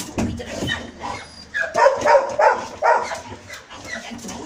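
Dog vocalising in a run of short, repeated calls, about three a second, starting a couple of seconds in, while it is being petted and rubbed.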